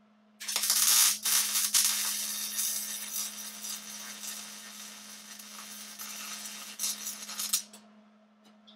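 Electric arc welder laying a weld on a metal go-kart frame. The arc crackles irregularly for about seven seconds, starting about half a second in and cutting off near the end, over a steady low hum.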